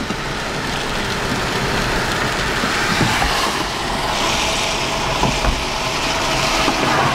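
Car driving on a rain-wet road: steady tyre and road noise with rain, growing a little louder, and a few light knocks.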